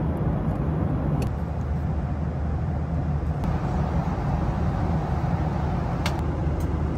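Steady cabin noise of a Boeing 737 in flight: a low rumble of engines and airflow, with a couple of light clicks, about a second in and near the end.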